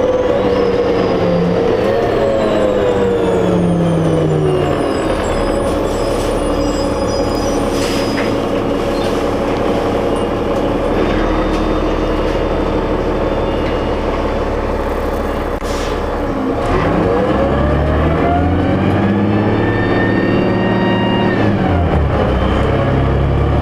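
New Flyer D40LF diesel city bus heard from inside the cabin. The engine and drivetrain whine falls as the bus slows, holds steady for a stretch, then rises again from about two-thirds of the way in as the bus pulls away and accelerates, dropping in pitch near the end at a gear shift.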